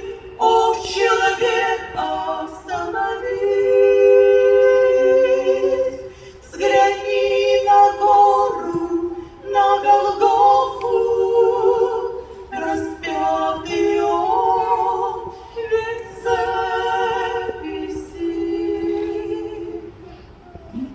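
Unaccompanied choir singing a hymn in harmony, in held phrases of a few seconds each, fading out near the end.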